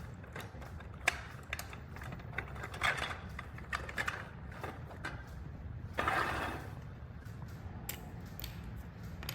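Electric curtain track parts being fitted by hand: a belt clip and drive belt being worked into the rail and transmission box, giving scattered sharp clicks and short scrapes, with a longer scraping slide about six seconds in. A steady low hum runs underneath.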